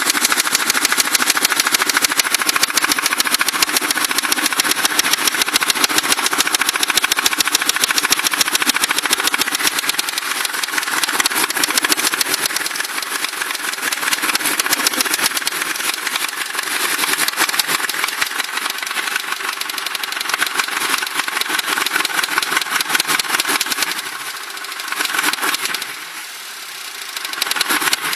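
Ford Crown Victoria V8 engine running with a fast, steady knock, a noise it has recently developed that the owner suspects may be rod knock. It gets quieter near the end.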